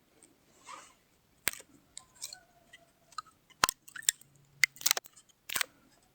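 Hands at work on a graft: a scatter of sharp clicks and snips at uneven spacing, most of them in the second half, with a soft rustle near the start.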